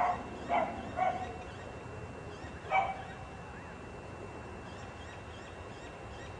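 A dog barking: four short barks in the first three seconds, the last one the loudest.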